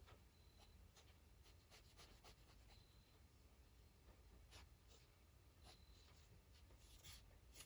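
Faint, irregular strokes and light taps of a Micron fineliner pen on paper during drawing, with a few stronger strokes near the end.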